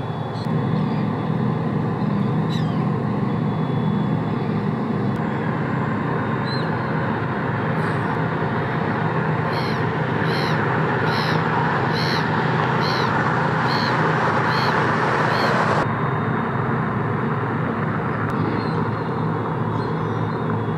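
Steady low hum of a bulk carrier's machinery with the rush of water pouring from a hull discharge outlet into the sea, swelling in the middle and cutting off suddenly. Partway through, a bird calls about eight times in a row.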